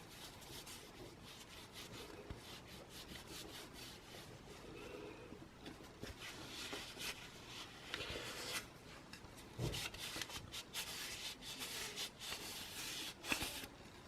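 Faint scratchy rubbing as a beeswax and mineral oil wood finish is worked into a wooden spoon, getting busier and louder about halfway through, with a couple of light knocks near the end.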